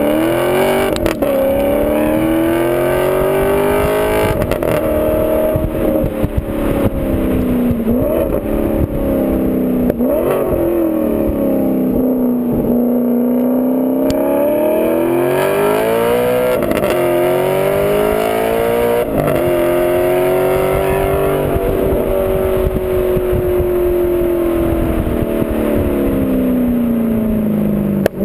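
Loud exhaust note of an Alfa Romeo 8C Competizione's 4.7-litre V8 as the car is driven, its revs repeatedly climbing and falling. Short sharp breaks in the note come every few seconds, where the pitch jumps, as at gear changes.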